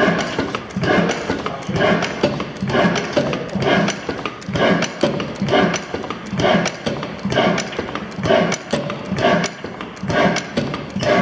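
Ruston stationary oil engine running steadily, its valve gear and rocker clattering in an even rhythm at about two beats a second.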